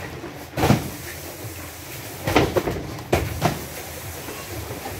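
Cardboard cartons of cup drinking water being handled and set down while unloading: several thumps and knocks, the first about a second in and a cluster of three between two and a half and three and a half seconds in.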